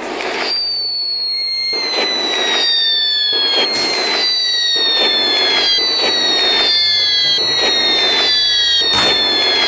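Barrage of whistling-shell fireworks sound effects: descending whistles one after another, about one a second and overlapping, over crackling bursts, with sharp bangs about four seconds in and near the end.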